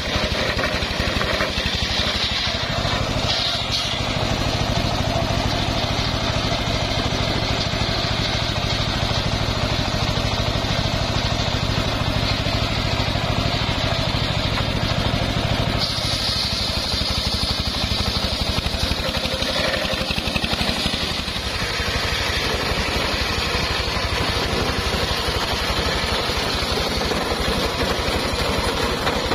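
The engine driving a homemade circular sawmill, running steadily while the blade saws through wood. A higher hiss of the cut comes up twice, briefly near the start and for a few seconds in the middle.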